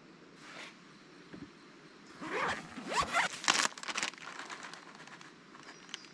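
Plastic bag of shredded cheese crinkling and rasping as it is handled and opened. There is a short burst of rustle with quick zip-like sweeps about two to four seconds in.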